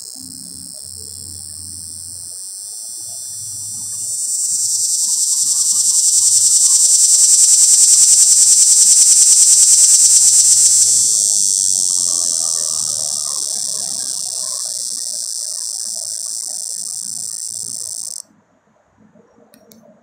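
Male cicada's calling song: a loud, continuous high-pitched buzz that swells to a peak about halfway through, slowly tapers off, then cuts off abruptly near the end.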